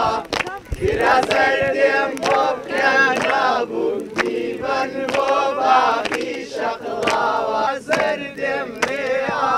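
A group of young men and women singing together in chorus, clapping their hands along.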